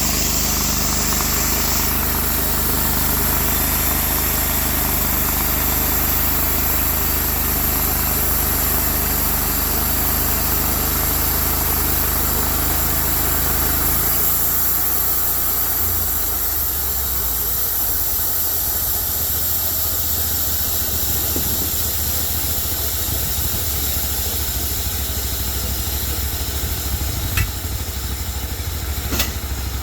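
Cook's MP32 band sawmill's engine running steadily with a hiss over it. About halfway through its note shifts lower, and two short sharp clicks come near the end.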